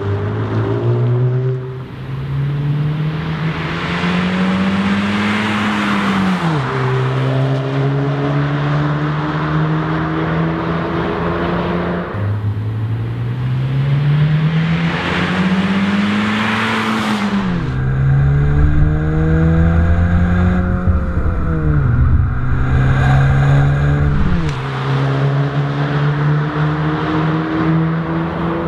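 Exhaust note of a 2017 Honda Civic Si sedan's turbocharged 1.5-litre four-cylinder through an HKS Hi-Power aftermarket muffler, the car accelerating hard in several runs. The engine pitch climbs over a few seconds and drops sharply at each gear change, then climbs again.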